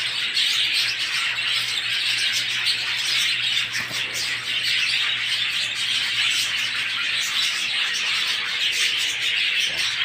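Many budgerigars chattering at once, a dense, unbroken twitter of overlapping chirps.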